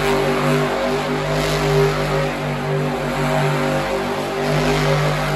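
Monster truck's supercharged V8 running loud and steady as the truck spins in circles on the dirt floor.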